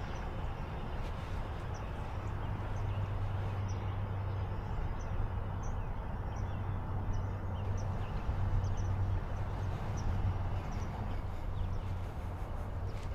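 Outdoor ambience: a steady low rumble with short, faint high chirps scattered through it every second or so.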